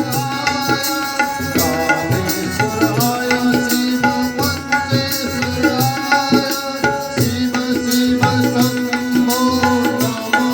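Indian devotional music: tabla strokes over a steady held drone, with melodic lines above; the drone drops out briefly a little past the middle.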